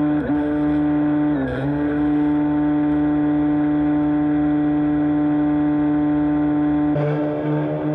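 Camarad RC bait boat's drive motor whining steadily at full speed, heard from on board. The pitch dips briefly about one and a half seconds in and again near the end.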